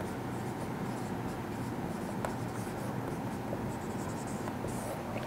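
Writing on a board: faint, irregular scratching strokes over a steady background hum.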